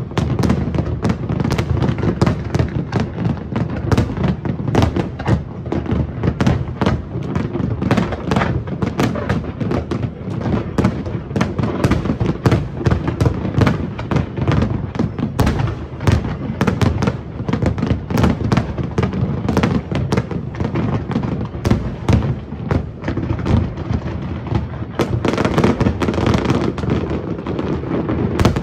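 Large aerial fireworks display: a dense, unbroken barrage of shell bursts with crackling between them.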